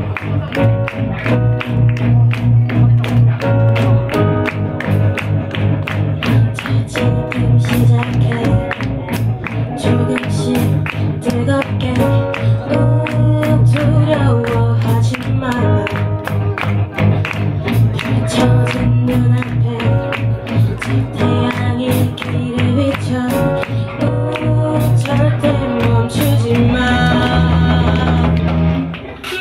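Live band music: a female singer sings through a microphone and PA over a drum kit keeping a steady beat, with keyboard accompaniment. The band drops back briefly near the end.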